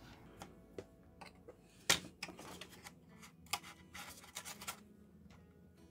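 Light clicks and taps of small objects being handled on a workbench, irregular, with one louder knock about two seconds in and a quick run of clicks near the end.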